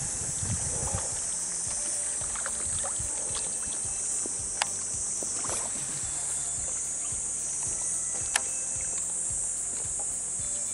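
Steady high-pitched drone of a summer cicada chorus, with two sharp ticks: one about halfway through and one near the end.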